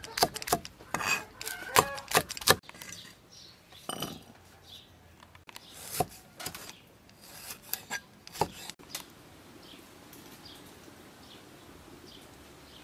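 Steel cleaver chopping ginger and red chillies on a wooden chopping block: a quick run of sharp knocks on the board for the first couple of seconds. Then a few separate knife strokes as limes are cut, and faint bird chirps in the background near the end.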